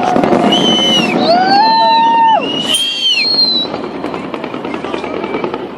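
Fireworks crackling and bursting in a dense barrage. Several long whistling tones glide up and down over it for the first few seconds, and the barrage dies down after about two and a half seconds.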